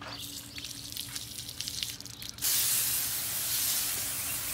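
Water from a garden hose's pistol-grip spray nozzle spattering in short, irregular splashes. About two and a half seconds in, the nozzle opens to a loud, steady spray that hisses onto a plastic trash bag.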